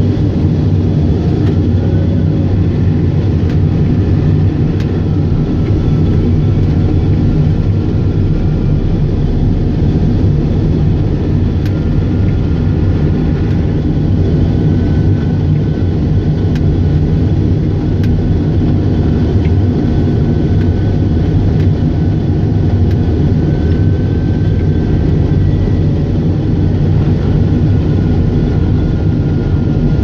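John Deere 624J wheel loader's diesel engine running steadily at working speed while plowing snow, heard inside the cab. A faint high whine comes and goes over the engine.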